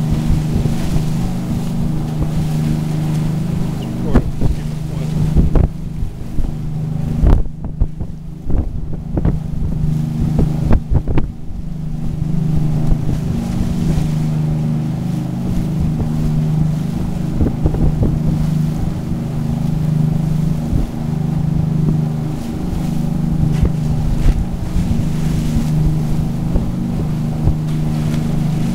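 Grand Banks 49 trawler's diesel engines droning steadily under way, with a slow throb, over the rush of the churning wake and wind on the microphone. A few sharp knocks come between about four and eleven seconds in.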